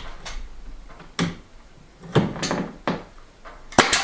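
Pneumatic nail gun firing nails into wooden ceiling trim: a sharp double crack near the end, the loudest thing here, after a few duller knocks and clunks of the gun and trim being pressed into place.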